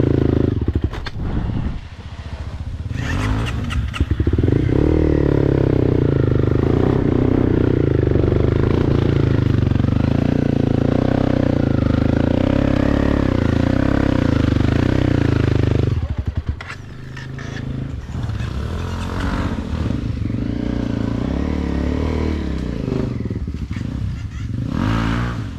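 Motorcycle engine running hard on a rough trail, loud and steady for about twelve seconds, then dropping to lower, uneven running with some clatter.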